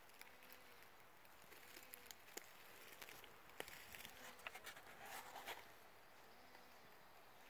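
Faint footsteps rustling through dry leaf litter and brush, with a few sharp twig snaps.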